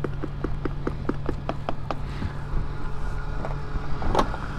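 Petrol pump running with a steady low hum and quick, regular clicking, about six or seven clicks a second. About four seconds in the hum stops and the fuel nozzle clunks as it is hung back on the pump.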